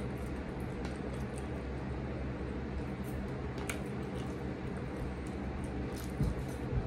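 Plastic water bottle being handled and its cap twisted, giving a few faint crackles and clicks over a steady low hum. Two soft thumps near the end.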